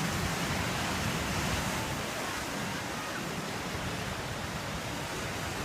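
Ocean surf washing steadily against the shore rocks.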